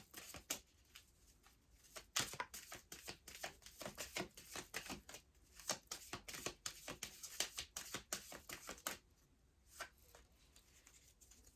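A deck of oracle cards being shuffled by hand: rapid riffling and flicking of cards that dies down about nine seconds in.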